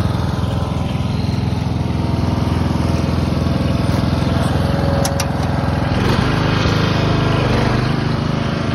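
Riding lawn tractor's small engine running steadily close by, its note shifting about six seconds in.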